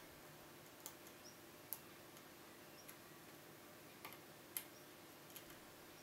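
Faint, irregular metal clicks and ticks of a lock pick and tension wrench working the pins inside a Kaba Gege pExtra euro cylinder with five pin stacks, security pins among them. Two sharper clicks stand out, near the second and near the fifth second.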